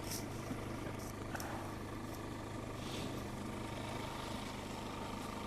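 Steady low engine hum, a motor vehicle's engine running, with a few faint clicks.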